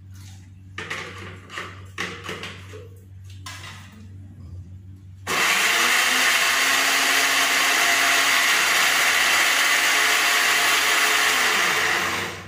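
A few light knocks and clicks from handling the jar, then a countertop electric blender starts suddenly about five seconds in. It runs steadily for about seven seconds, pureeing ingredients with a little water, and stops just before the end.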